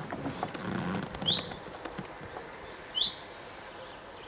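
A songbird calling: a short, high, rising chirp heard twice, about a second and a half apart.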